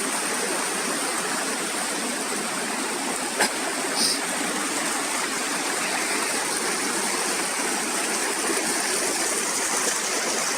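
Waterfall and stream water rushing steadily, a constant even hiss of falling and running water, with a faint click about three seconds in.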